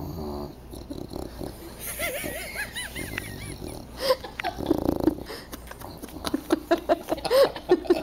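Bulldog snoring and wheezing in its sleep, with a louder burst about four seconds in. From about six seconds a person laughs.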